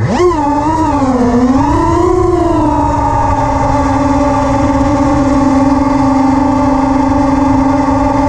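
FPV quadcopter's brushless motors (Armattan Oomph 2206 2300 kV) and three-blade 5-inch props whining, the pitch swinging up and down with the throttle for the first two to three seconds, then holding steady.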